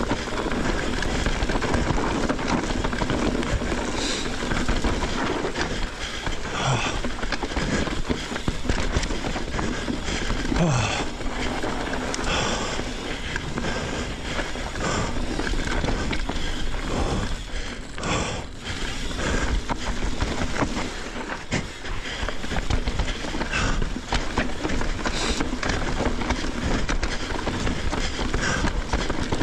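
Mountain bike riding down a dirt singletrack: continuous tyre and trail noise with frequent knocks and rattles as the bike goes over bumps.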